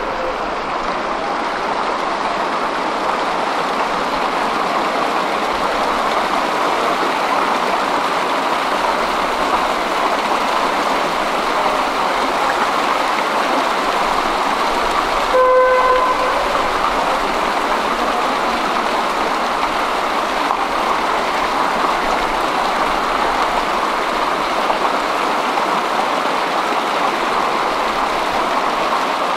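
A steady rushing noise, with one short horn beep about halfway through.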